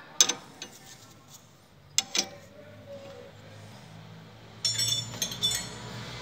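Hand wrenches working on the nut of a car's sway bar link: sharp metal clinks near the start and about two seconds in, then a quick run of metallic clicking near the end as the nut is retightened.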